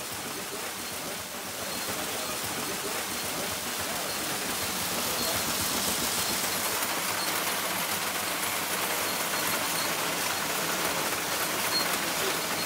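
Rotary indented-cylinder seed sorter running, a wheat and lentil mix tumbling and sliding through the turning cylinder in a steady, even hiss of grain.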